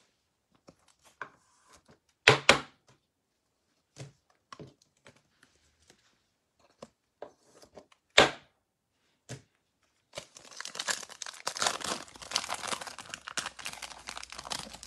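A few sharp knocks and light taps, then, from about ten seconds in, a foil trading-card pack being torn open by hand, with several seconds of continuous crinkling and ripping.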